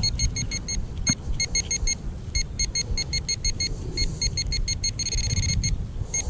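Handheld metal-detecting pinpointer beeping in quick runs of short electronic beeps, about six a second, as it is probed through a dug soil plug, merging into a continuous tone just after five seconds in as it homes in on the buried coin. Low rustle of the soil and grass being handled underneath.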